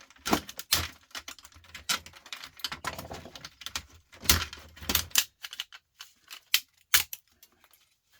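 Irregular sharp clicks and knocks of hard plastic being handled and pried as a control board is worked out of a dishwasher's plastic display panel.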